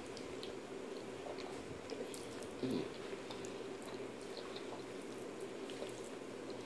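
Quiet wet eating sounds: small clicks and sticky ticks as a fork twirls and lifts Alfredo-sauced pasta, over a steady low hum. There is a brief louder low sound about two and a half seconds in.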